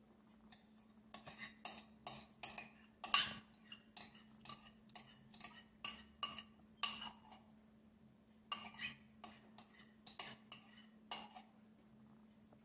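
Irregular sharp taps and clicks, a few a second, from a curd container and a thin aluminium foil tray being handled as curd is tipped onto marinating chicken.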